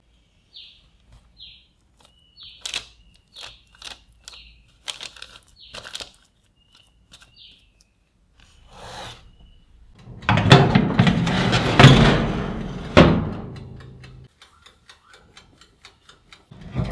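Light taps and paper rustles as soft dough rolls are set down on a parchment-lined metal baking tray. About ten seconds in comes a loud rattle and scrape, the tray going into the oven, ending a few seconds later in a sharp knock as the oven door shuts.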